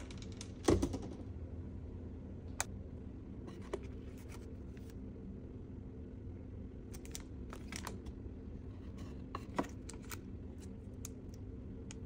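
A glass-lidded wooden humidor is opened with one loud thud about a second in, followed by scattered light clicks and cellophane crinkles as wrapped cigars are handled and picked out, over a steady low hum.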